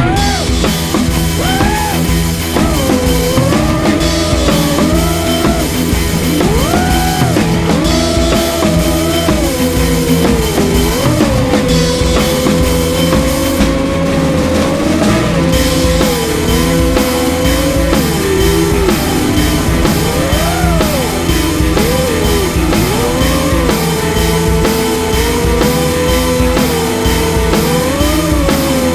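Rock music with a steady drum-kit beat and a bending lead guitar melody.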